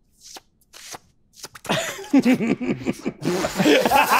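A few short, sharp breaths or hisses, then loud laughter from several men starting about a second and a half in.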